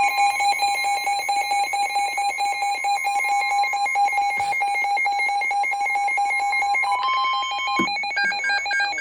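Emergency Alert System two-tone attention signal, a steady harsh dual tone. About seven seconds in it switches briefly to a single steady tone, then to rapid warbling bursts of the digital SAME data header that opens the next alert.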